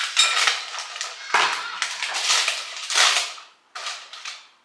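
Rigid plastic lid being pressed and scraped onto a bowl: rough crackling and scraping of plastic in a few bursts, dying away near the end.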